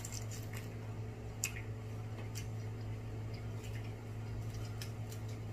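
Eating sounds: wet squishing and scattered small clicks as garlic-butter snow crab legs are picked apart and chewed, over a steady low hum.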